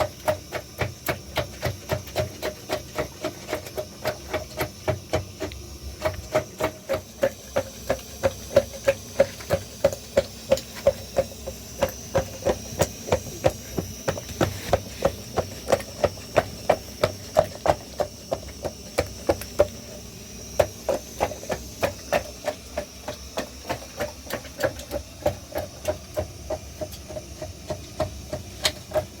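Regular, repeated striking, about two to three blows a second. Each blow has a short ringing tone, and the blows stop briefly about two-thirds of the way through.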